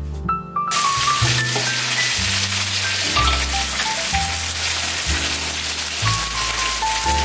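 Water pouring from a plastic bottle into a plastic bag: a steady splashing hiss that starts under a second in, heard over background music with a melody and bass.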